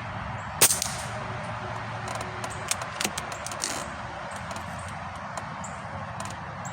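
A single shot from a Benjamin Akela .22 PCP air rifle, one sharp crack about half a second in, the loudest sound here. It is followed about a second and a half later by a quick series of metallic clicks, typical of the action being cycled to load the next pellet.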